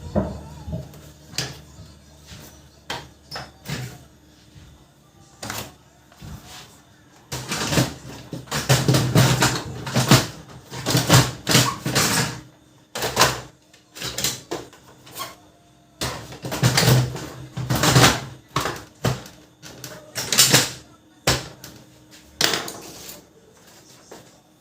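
Irregular clicks, knocks and clattering of plastic parts as a Brother MFC-7360 laser printer is handled, coming in busy clusters with short pauses between them.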